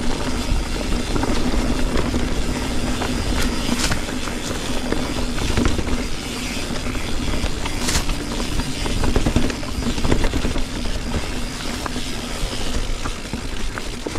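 Canyon Neuron full-suspension mountain bike on Maxxis Forekaster 29x2.20 tyres at about 1.3 bar, rolling over rough rocky trail: a steady rumble from tyres and frame, broken by frequent sharp knocks and rattles from impacts.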